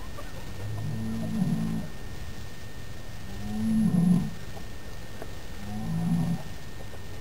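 Background music of low, swelling held notes, three of them about a second long each, spaced two to three seconds apart.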